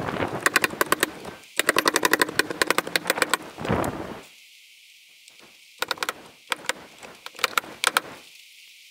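Pneumatic nail gun firing a rapid string of sharp shots as lap-siding planks are nailed to the wall, played back sped up. The shots come in two runs, the first dense at about ten a second, the second sparser near the end.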